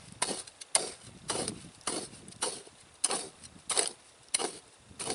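Military trenching shovel chopping into dry, sandy dirt to dig a pit: a steady series of short scraping strikes, about two a second.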